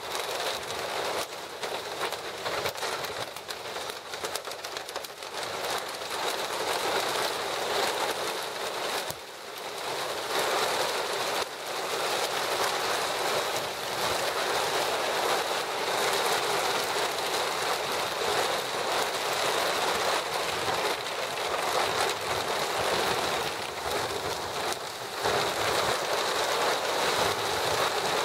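Steady downpour of storm rain, a dense, even hiss of drops striking surfaces.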